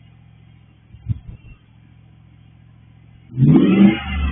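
2005 5.7 Hemi V8 with a Borla aftermarket exhaust idling with a steady low burble, with a short low burst about a second in. Near the end it is revved hard, the pitch climbing and then dropping back.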